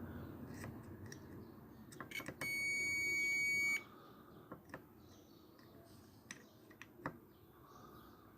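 A multimeter's continuity buzzer gives one steady high beep about two and a half seconds in, lasting about a second and a half, with a few sharp probe clicks before and after. Across the TV power supply's DC output, the beep signals a short circuit.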